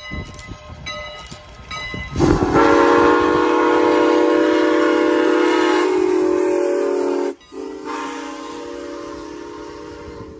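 Train horn sounding a chord of several notes: one long blast of about five seconds, then a brief break and a second blast that fades away. In the first two seconds a bell rings in quick repeated strokes.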